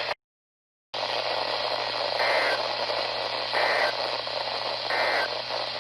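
NOAA Weather Radio receiver hiss, after a brief dropout, carrying three short two-tone digital data bursts about a second and a half apart: the EAS/SAME end-of-message code that closes a broadcast warning.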